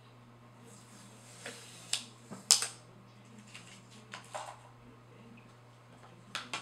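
A hard plastic phone case and phone being handled and wiped with a cleaning cloth: scattered light clicks and taps with soft rubbing between them, the sharpest tap about two and a half seconds in.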